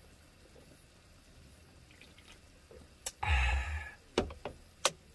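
A swig from a can of beer, heard as a click and a short loud burst of drinking and breath about three seconds in. Then three sharp knocks as the can is set down on the wooden table.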